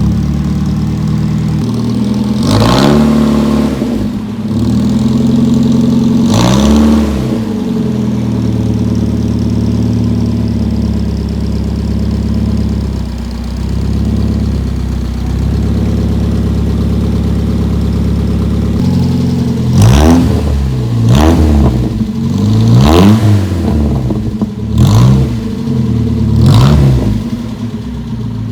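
Toyota KP30's 4K inline-four engine, breathing through a new extractor header and HKS exhaust tip, revved a couple of times with quick rises and falls, then left at a steady idle. Near the end it is blipped about five times in quick succession.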